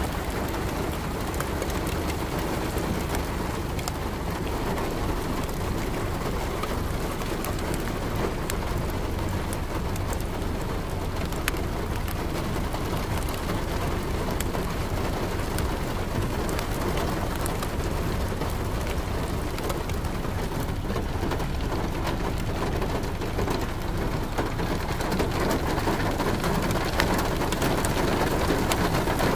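Steady rain falling, with scattered drop ticks over a low rumble, growing a little louder near the end.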